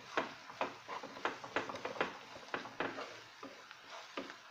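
Wooden spatula stirring and scraping chopped onions and garlic paste around a non-stick pan as they sauté, in quick strokes about three a second that thin out near the end.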